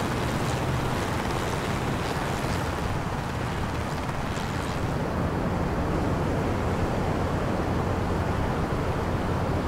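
Wind and breaking waves in heavy seas, with a steady low engine rumble underneath. About halfway through, the hiss of spray thins and a steadier low drone takes over.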